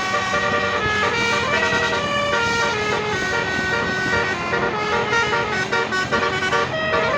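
Basuri 'telolet' multi-tone bus horn playing a melody: several horn tones sound together and step quickly from note to note, without a break.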